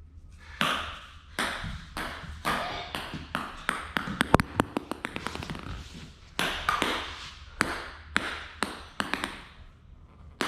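Ping-pong ball being hit back and forth with paddles and bouncing: sharp, irregular knocks about once a second, with a quick flurry of small bounces about four to five seconds in.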